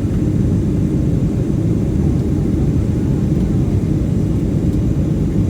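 Steady low rumble of an airplane's engines and rushing air heard inside the passenger cabin as the plane descends to land.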